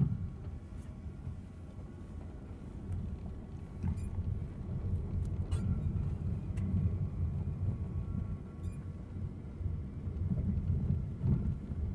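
Car driving along a street, heard from inside the cabin: a steady low rumble of engine and road noise, with a few faint clicks.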